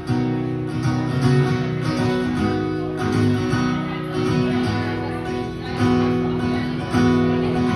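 Acoustic guitar strummed solo, an instrumental break between verses of a song, the chords changing every second or so.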